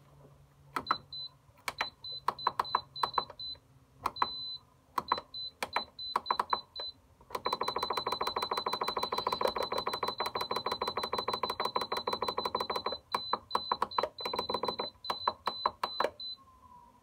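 Rapid electronic clicking with a high-pitched beep, coming in short bursts. For about five seconds in the middle it runs continuously, then it breaks back into bursts and stops.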